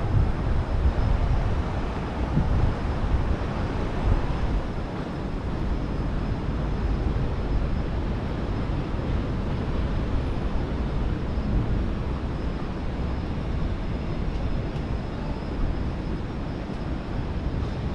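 Steady outdoor ambience made up mostly of a low, wavering rumble.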